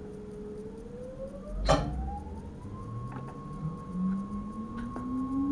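Electric Sprinter train's traction motors whining and rising steadily in pitch as the train accelerates. A single sharp knock comes a little under two seconds in.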